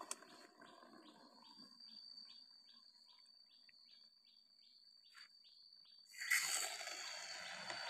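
Outdoor bird and insect sounds: a bird repeats a short falling call about three times a second over a steady high insect drone. About six seconds in, a louder rustling, scraping noise starts.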